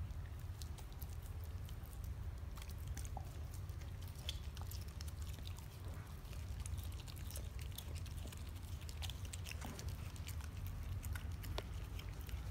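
German Shepherd chewing and gnawing a chunk of raw steak, with irregular short clicks and smacks of teeth and mouth over a steady low hum.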